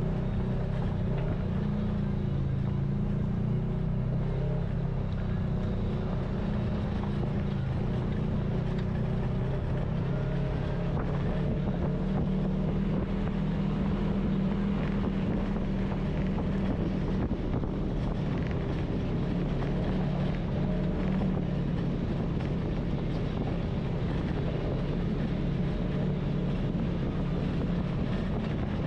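Side-by-side UTV engine running at a steady cruising pace, recorded from the vehicle's own onboard camera, with some wind on the microphone.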